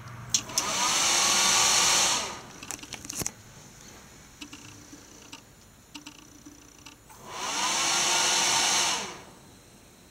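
Computer fans (CPU cooler fan and fans run straight off the power supply) spin up with a rising whine and a rush of air, run for about two seconds, then wind down and stop; this happens twice, about seven seconds apart, with a sharp click just before the first spin-up and a few more after it stops. The system is power cycling and failing to POST, which the owner suspects is a short circuit on the motherboard.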